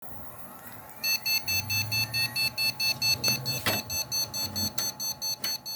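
A PC motherboard's POST beeper sounding rapid, evenly repeated high beeps, nearly four a second, starting about a second in. The computer is failing to start, and the fault behind this beep code is a bad RAM module.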